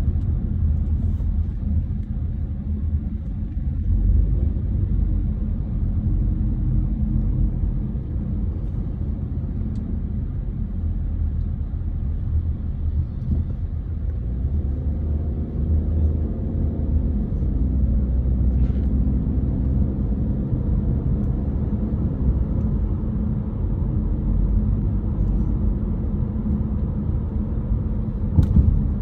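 Steady low rumble of a car's engine and tyres heard from inside the cabin as the car rolls slowly along.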